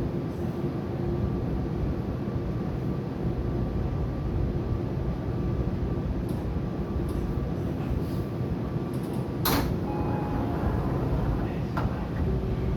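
Sliding passenger doors of a Tobu 80000-series train operating, with a sharp clunk about nine and a half seconds in and a lighter knock about two seconds later, over a steady low hum from the stopped train.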